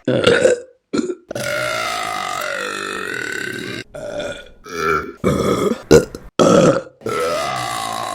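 Women burping, one clip after another: several short burps and two long, drawn-out ones, the first starting about a second and a half in and the second near the end.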